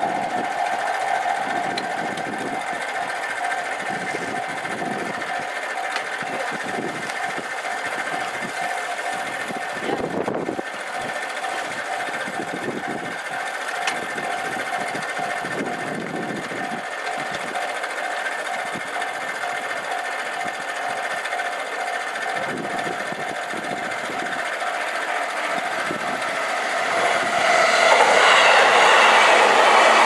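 Japanese level-crossing warning bell ringing in a fast, even repeat while the barriers are down. Near the end a JR Keihin-Tōhoku Line E233-series electric train rushes through the crossing, its wheels on the rails loud over the bell.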